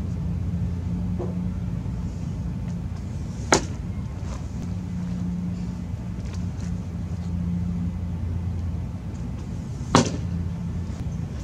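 Two baseball pitches popping into a catcher's leather mitt, about six seconds apart, over a steady low hum.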